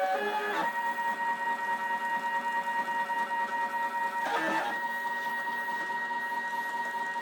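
CNC router stepper motors driving an axis, giving a steady whine at one pitch after a couple of quick pitch changes at the start, with a brief break in the tone a little after four seconds in.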